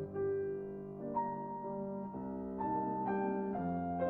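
Background piano music: a slow melody of sustained notes.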